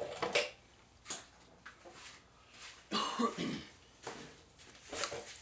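A man coughs about three seconds in, with a few light clicks and knocks around it.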